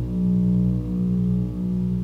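Ambient electronic synthesizer music: a low droning chord of sustained tones that pulses and re-sounds every half second or so.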